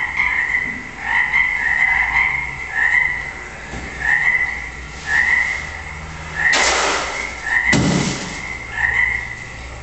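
A croak-like amplified sound repeating about once a second, with two loud bursts of hiss about two-thirds of the way through, from a live electronic performance worked by hand on a tabletop device.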